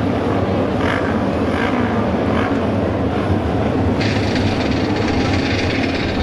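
Auto race motorcycles running together in a pack on the oval, a steady loud engine drone with faint regular surges. It grows brighter about four seconds in.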